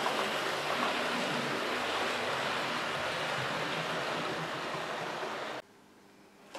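00 gauge model train running on the layout's track: a steady, dense rushing rumble of wheels and motor. About five and a half seconds in it cuts off abruptly, leaving a much quieter background.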